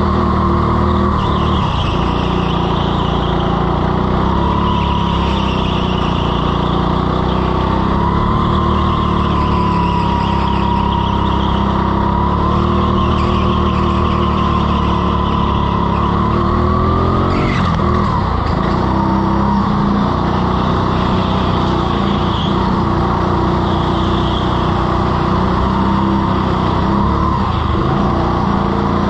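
Indoor rental go-kart heard from onboard, its motor running hard with a whine that rises and falls as it speeds up and slows through the corners, over the hiss of the tyres on the slippery floor. A brief knock comes about seventeen seconds in.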